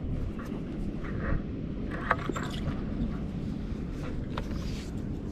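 Steady low rumble on an open boat at sea, with a few short clicks and knocks about two seconds in and again near four and a half seconds as a conventional fishing reel and rod are handled.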